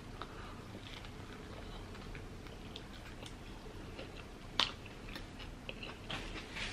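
A person chewing a bite of chicken salad sandwich on soft bread, with small wet mouth clicks; one sharper click about four and a half seconds in.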